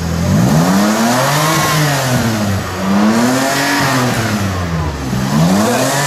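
Engine of a modified Toyota Camry show car revving: it rises and falls three times, each rev lasting about two seconds and the third peaking near the end, just after a start and a short idle.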